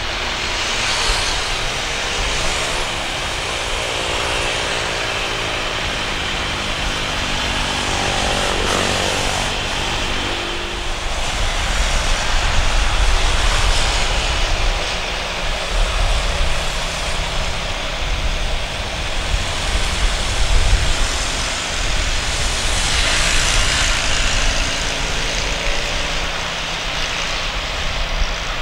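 Airbus A320 jet engines: steady jet noise from a landing A320 rolling out on the runway, then, after a cut, a second A320 with CFM56 engines on final approach, its engine noise swelling as it draws closer.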